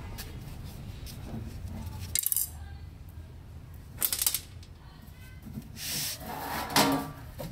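Short metallic clinks and clatter: a screwdriver and screws being handled and set down on a tile floor, then the UPS's metal case cover shifting as it is pulled loose. Three separate bursts about two seconds apart, the last the loudest.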